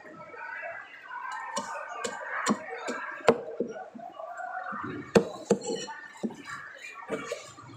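A cleaver and a large threadfin fish knocking against a wooden chopping block while the fish is handled and cut: about nine sharp knocks, the two loudest about three and five seconds in.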